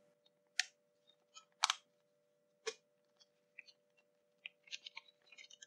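Clear plastic packaging bags crinkling in three short, sharp rustles, then a run of small crackles and clicks as a fabric battery strap with a metal buckle is handled and drawn out of its bag.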